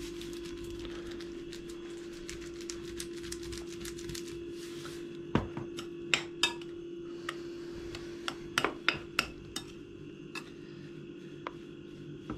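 Kitchen utensil clinking and scraping against a glass mixing bowl as a potato mixture is stirred: a rapid run of faint ticks for the first few seconds, then several sharp clinks about five to nine seconds in. A steady low hum runs underneath.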